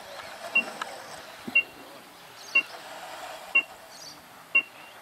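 Electronic race start timer beeping once a second, five short high pips evenly spaced, counting down the minute before a radio-sailing race start.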